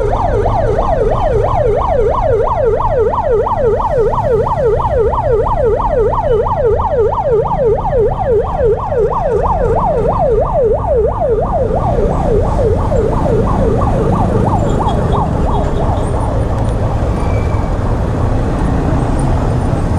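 Emergency vehicle siren in a fast yelp, its pitch rising and falling about three times a second, fading away about three quarters of the way through, over the steady rumble of road traffic.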